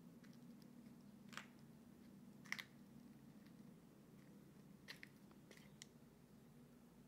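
Near silence over a low steady hum, broken by about six faint short crackles and clicks, the loudest about two and a half seconds in.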